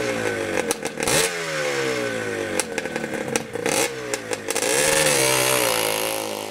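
Motorcycle engine blipped again and again while standing, the revs falling back after each blip.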